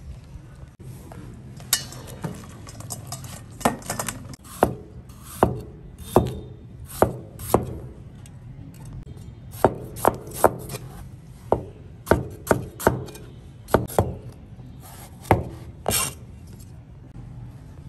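Food being prepared by hand: about twenty irregular sharp clicks and knocks, some in quick pairs, over a low steady hum.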